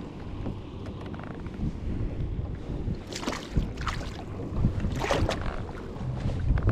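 Wind rumbling on the microphone as water laps and splashes against a kayak hull, with three brief splashes about three, four and five seconds in.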